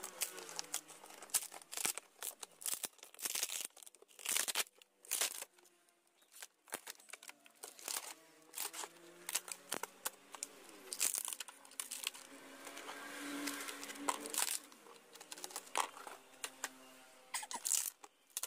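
Sheet material being torn and crumpled by hand, in short irregular rips and crinkles.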